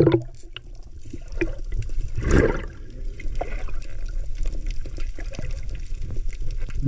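Water sloshing and gurgling with a scatter of small clicks, and one louder splash about two seconds in.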